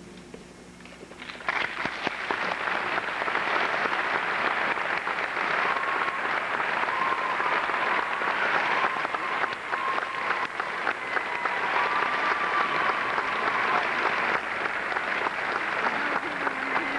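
Audience applause breaks out about a second in after a brief lull and carries on steadily as a dense clapping.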